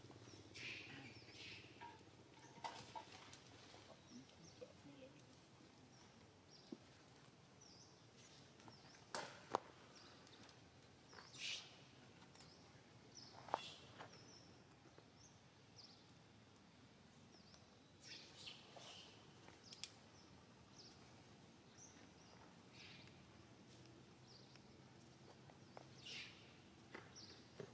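Near silence: faint outdoor ambience with scattered short bird chirps and a few sharp clicks.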